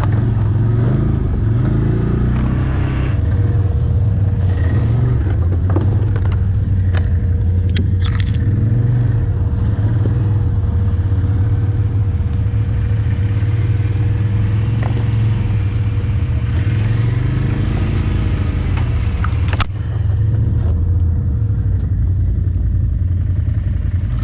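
A quad (ATV) engine running steadily under way over rough ground, with occasional sharp knocks and scrapes as the machine pushes through brush.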